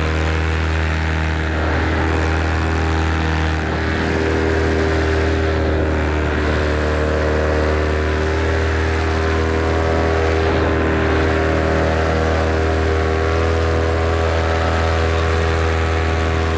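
Vittorazi Moster 185 paramotor's single-cylinder two-stroke engine and propeller running steadily at constant power.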